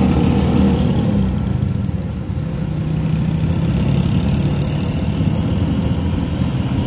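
Motorcycle engine running steadily while riding in traffic, heard from on the bike, under constant wind and road noise.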